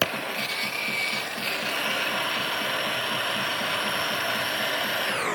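A machine running steadily, with a low pulsing a few times a second; it starts abruptly and its pitch drops near the end.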